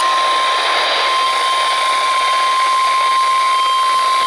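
NOAA Weather Radio 1050 Hz warning alarm tone: one loud, unbroken steady tone over receiver hiss, the alert that precedes a warning broadcast, here a severe thunderstorm warning.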